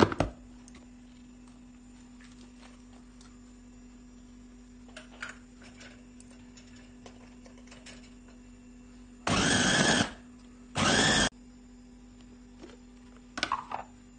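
Silver Crest electric meat chopper running in two short pulses, the first a little under a second and the second about half a second, grinding beef mince with onion and spices. A few clicks near the start and near the end as the chopper's lid and motor unit are handled.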